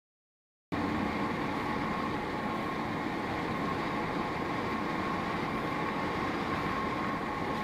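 Silent for a moment, then steady road noise inside a moving car, heard through a dashcam microphone: tyre rumble and engine drone at highway speed, with a thin steady whine running through it.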